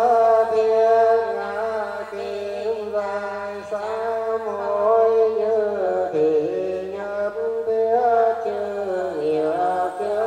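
Ceremonial chant-like music: a continuous, sustained melody line that holds notes and bends in pitch, with no clear beat.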